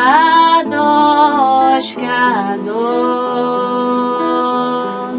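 Worship music: a singing voice holds long notes that glide up and down, over a sustained, steady accompaniment.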